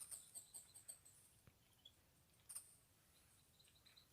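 Near silence outdoors. A few faint, high-pitched chirps come near the start and again about two and a half seconds in.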